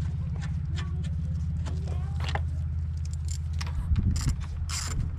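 A car engine idling with a steady low hum, under a run of sharp metallic clicks and clinks from headlight-assembly bolts being fitted and tightened. The clicks come more often and louder near the end.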